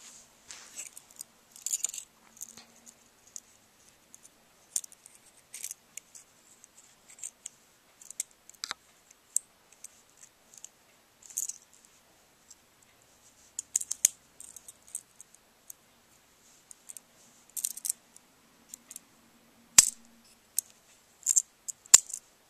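Small Swiss Army knife being handled, its blades opened and folded: scattered light metal clicks and scratchy handling noise, with two sharper snaps near the end.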